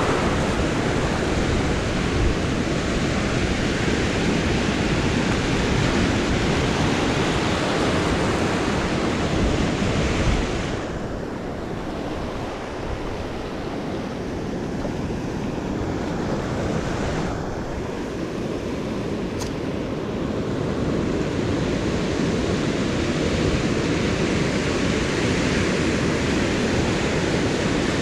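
Ocean surf breaking and washing up over a sand beach, a steady hiss and rumble of water that eases for several seconds around the middle and then builds again.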